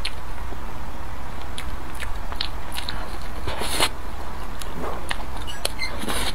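Eating sounds of a person chewing bites of a bun soaked in melted chocolate, with scattered sharp mouth clicks and a few short noisy bursts.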